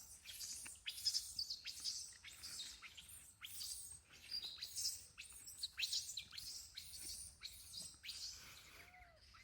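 Birds chirping: many short, high, rapid chirps that overlap throughout, with one lower, arching call near the end.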